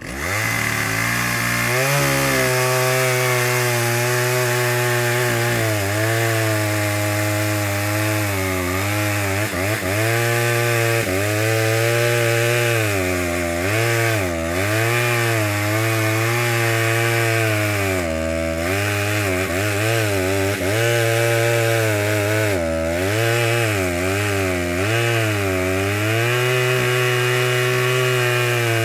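Chainsaw cutting wood: the saw's pitch dips again and again as the chain bites into the cut, then recovers.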